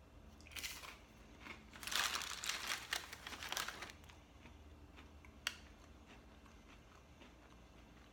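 Plastic packaging crinkling as it is handled, briefly at first and then loudly for about two seconds. A single sharp click follows about a second and a half later.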